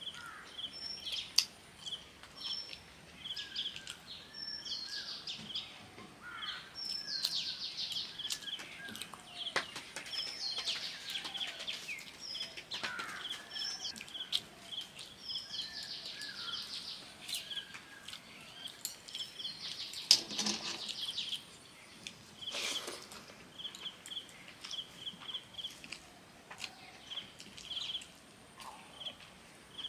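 Birds calling and singing, one repeating a short high chirp a few times a second, with scattered soft clicks and wet sounds of watery rice being mixed and eaten by hand. One louder, fuller noise comes about two-thirds of the way through.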